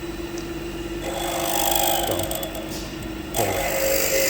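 Milling machine spindle running with a steady hum while a 5/16 drill bit feeds into the part with cutting fluid. The drill starts cutting about a second in, backs off briefly near the end, and cuts again: peck drilling.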